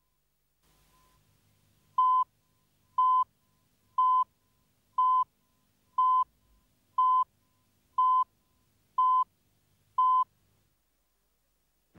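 Countdown beeps from a video tape leader: nine short beeps of the same steady pitch, one a second, starting about two seconds in, over a faint low hum.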